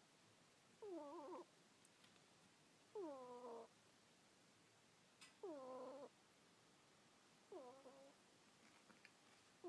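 A sleeping ferret snoring: short pitched snores that dip in pitch, four of them about two seconds apart.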